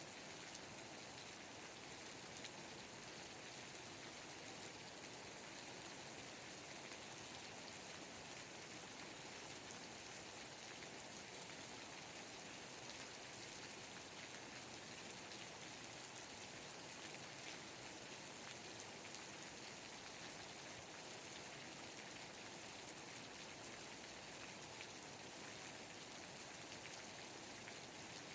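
Steady, faint rainfall: an even hiss of rain with many small drops ticking through it, unchanging throughout and with no thunder.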